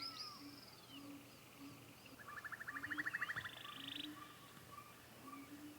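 Faint nature ambience of animal calls: a soft low call repeating about twice a second, with short chirps and a rapid pulsed trill between about two and four seconds in.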